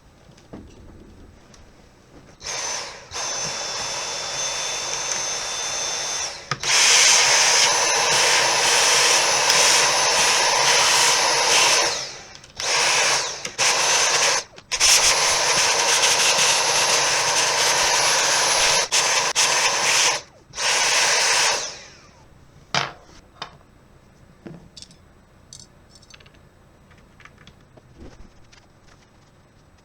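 A small handheld electric tool with a whining motor, run in several bursts of a few seconds each with short breaks between, followed by a few light clicks and taps.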